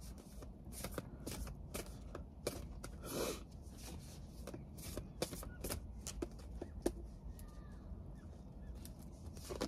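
Tarot cards being shuffled and handled by hand: a quiet run of irregular soft flicks and taps.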